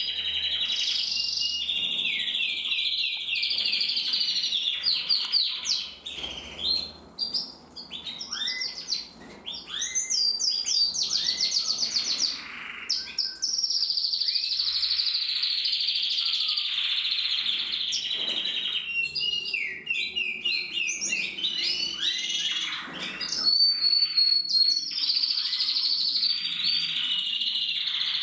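A domestic canary singing a long, continuous song of rapid trills and rolls, the notes repeating quickly and gliding in pitch, with a quieter stretch about six to nine seconds in.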